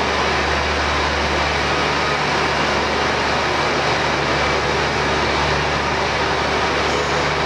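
Diesel engine of a KiHa 48 railcar running steadily, a loud even mechanical noise over a low hum, with a steady low tone joining about a second in.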